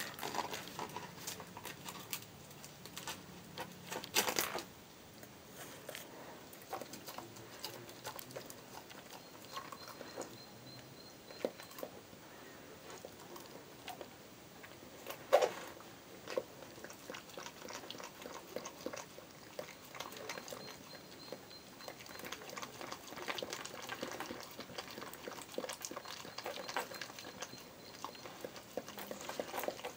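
A border collie–springer spaniel cross nosing, pawing and licking a whole egg on a concrete floor: scattered small taps and clicks of the shell on the concrete with wet licking, and two louder knocks, one about four seconds in and one about halfway through.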